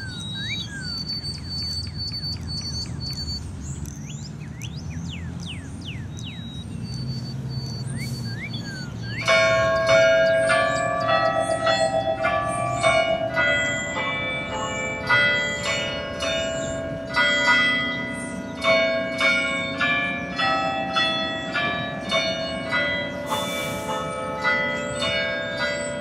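A chime of cathedral tower bells, struck one after another to play a tune, each note ringing on under the next, starting about nine seconds in. Before the bells come in, only faint high chirps are heard, like birds.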